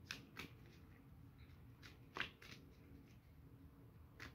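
Faint handling of tarot cards: a few soft flicks and taps, the clearest about two seconds in.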